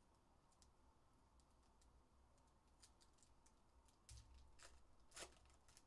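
Faint tearing, rustling and clicking of trading card packs being opened and cards handled, with a louder click about five seconds in.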